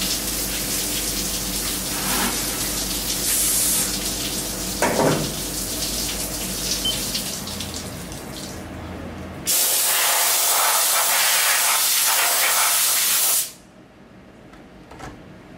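Flood coolant spraying and splashing over a steel plate and vise inside the enclosure of a Haas Mini Mill 2, with a low machine hum under it, fading after the first few seconds. About two-thirds of the way in, a louder steady hiss starts suddenly, runs for about four seconds and cuts off.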